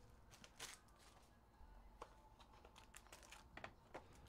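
Faint crinkling and soft clicks of a cardboard trading-card box being opened and a foil card pack handled, a handful of brief scattered sounds.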